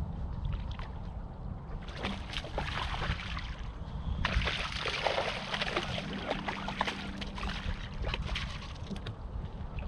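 A hooked bass splashing at the surface beside the boat as it is reeled in and landed, in two spells of splashing about two and four seconds in. A low wind rumble on the microphone runs under it.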